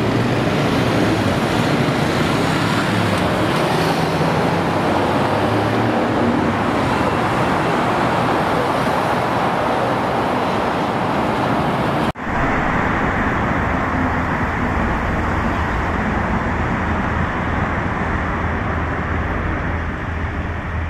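Steady city road traffic: cars running and passing. About twelve seconds in there is an abrupt cut to a second, slightly duller stretch of the same kind of traffic noise.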